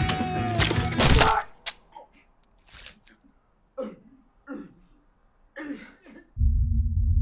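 Loud film score with sharp hits cuts off about a second in, leaving a quiet room where a person gives a string of short, falling gasps and grunts, out of breath after a struggle. Near the end a low steady drone starts.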